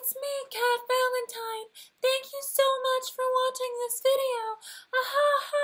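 A woman singing unaccompanied in a high voice, in short held notes with brief breaks between them and a falling slide about four seconds in.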